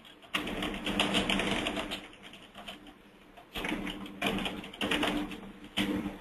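Computer keyboard typing in four bursts of rapid clicks, with a low hum that comes and goes with each burst.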